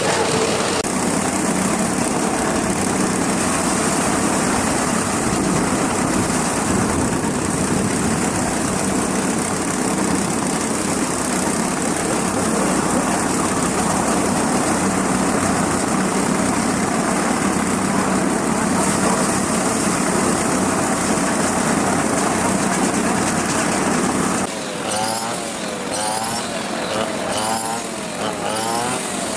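A small engine running steadily. About 24 seconds in it drops away, and a run of short, repeated wavering sounds follows.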